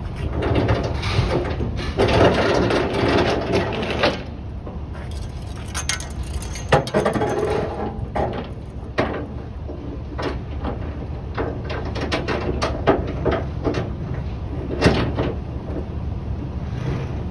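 Steel tie-down chain clinking and rattling as it is drawn through a wooden cable reel on a flatbed trailer, in many short knocks over a steady low rumble.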